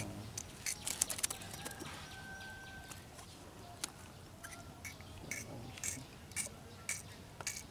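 Faint, irregular clicks and taps from a small freshly caught fish being handled and unhooked.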